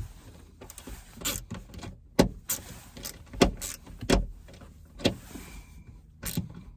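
A string of about a dozen irregular sharp clicks and knocks as a hand screwdriver drives the second mounting screw of the sun visor bracket into the car's roof.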